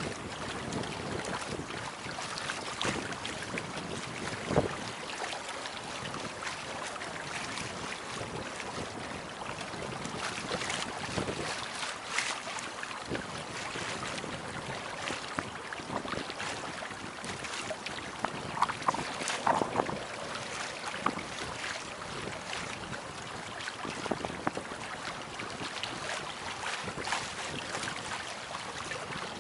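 Wind on the microphone and water rushing and splashing along the hull of a Beneteau First 20 sailboat under sail, with scattered short knocks.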